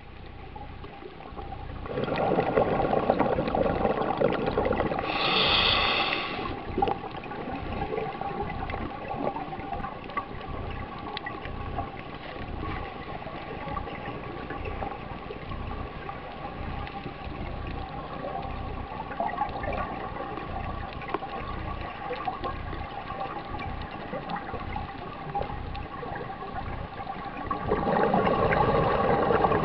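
Scuba regulator breathing heard underwater: a loud burst of bubbling from about two seconds in, ending in a brief hiss, then a long stretch of quieter steady underwater noise, and bubbling again near the end.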